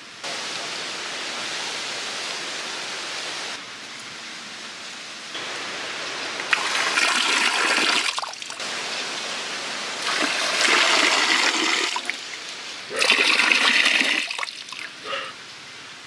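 Water pouring from a bamboo spout and splashing into a shallow pond. It comes in several loud rushes of one to two seconds, each starting and stopping abruptly, after a quieter steady hiss at the start.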